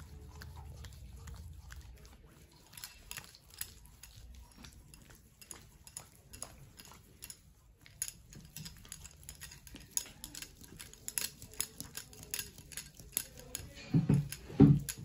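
Hands massaging cream over a face and neck during a facial: soft, irregular sticky clicks and pats of slick skin on skin, growing busier in the second half.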